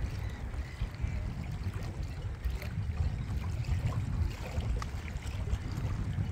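Wind buffeting the microphone in an uneven low rumble, over small waves lapping and splashing against the waterside.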